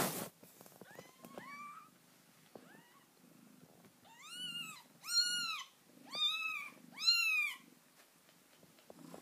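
Newborn kittens mewing: a few faint, thin squeaks, then from about four seconds in four loud, high-pitched cries in quick succession, with soft cat purring underneath.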